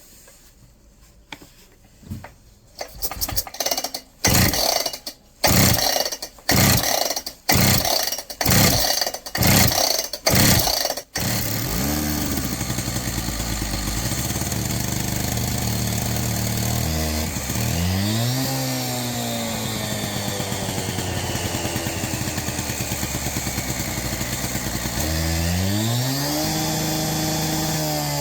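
Husqvarna K760 two-stroke power cutter being recoil-started on choke, with its decompression valve pressed in: about eight pulls of the starter cord, then the engine catches about eleven seconds in and keeps running. The engine is revved up twice with the throttle, once in the middle and again near the end, dropping back in between.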